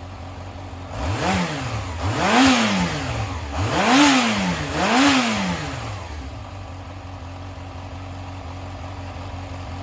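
Yamaha XJR400 air-cooled inline-four engine (4HM) idling, blipped four times in quick succession about a second in, each rev rising and falling before it settles back to a steady idle. It runs cleanly, with no abnormal noise.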